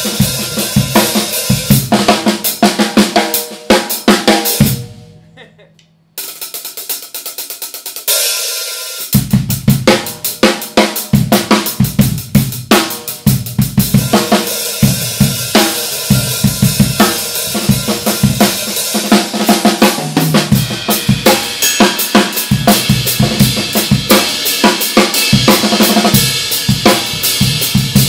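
Drum kit groove played with bright, high-pitched Paiste 2002 Sound Edge 14-inch hi-hats over kick and snare. The playing stops briefly about five seconds in, then picks up again.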